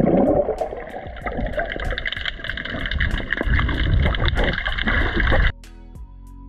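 Muffled underwater rushing and bubbling picked up through an action camera's housing, under background music with a steady beat. About five and a half seconds in it cuts suddenly to quieter music of held tones.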